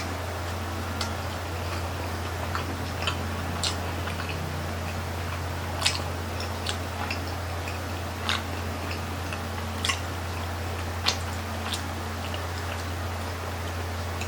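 Eating grilled chicken intestine (isaw) skewers: scattered, irregular wet mouth clicks and smacks of chewing, over a steady low hum.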